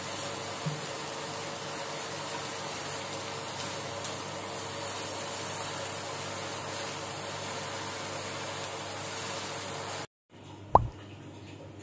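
Food sizzling in a nonstick frying pan on an induction cooktop, a steady hiss over a faint steady hum, with a couple of light spatula taps. Near the end the sound cuts out and a single short plop with a quickly falling pitch follows.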